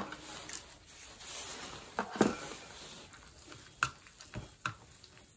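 Hands handling small tableware and an instant-food cup with a peeled paper lid: a few light clicks and taps, the sharpest about two seconds in, over faint rustling.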